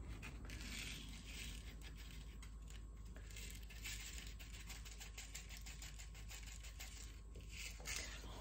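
Hands sowing onion seeds: soft rustling with many small ticks and scratches.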